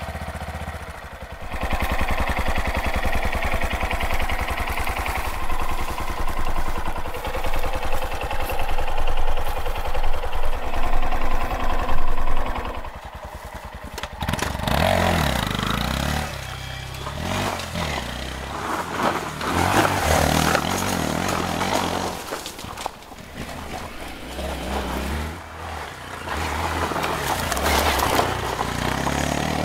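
Honda Monkey's 125cc single-cylinder engine running at a steady idle for roughly the first dozen seconds. The bike is then ridden, with the engine revs rising and falling repeatedly.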